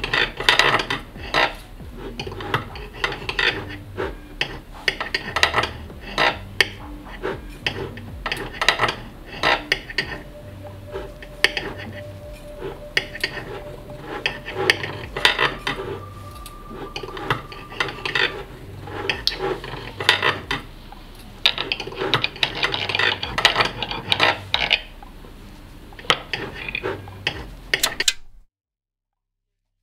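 Knife and fork cutting into a stack of crepes, with many irregular scrapes and clinks of metal cutlery. The sound cuts off suddenly near the end.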